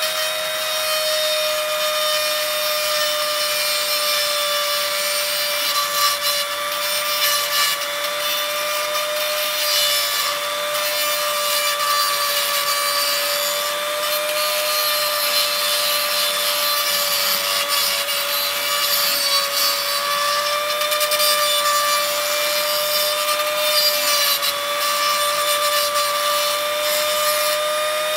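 Handheld rotary tool running with a steady whine that wavers slightly in pitch, its sanding bit grinding with a rasp against the enlarged end of a metal rivet to wear it down.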